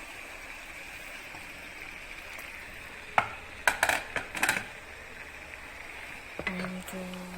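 A spoon clinking and scraping against the curry pot a few times, in a quick cluster about three to four and a half seconds in, over a steady hiss from the simmering pot on the stove.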